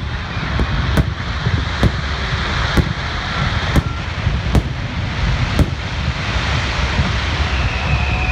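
Fireworks display: aerial shells bursting in sharp bangs about once a second over a steady low rumble, the bangs stopping about six seconds in.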